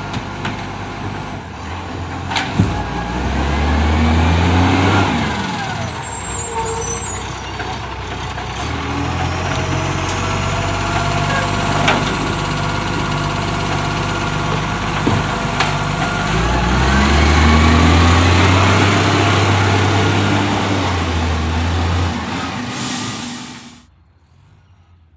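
Acco garbage truck's engine, which has an exhaust leak, revving up twice with a few sharp clicks over it. The sound drops away abruptly near the end.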